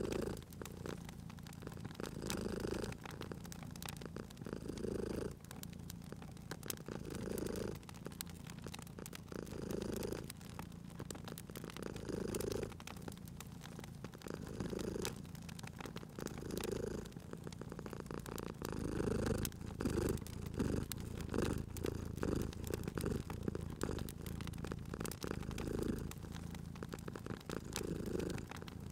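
Domestic cat purring steadily, the purr swelling and easing about every two and a half seconds with its breathing. Scattered sharp crackles and pops from a wood fire sound over it.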